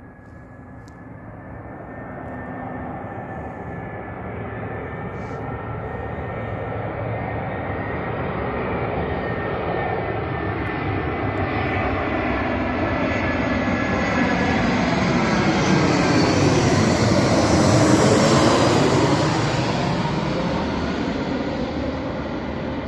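Jet airliner flying low overhead: its engine noise with a high fan whine builds steadily, peaks loud as it passes, and the pitch sweeps down as it moves away.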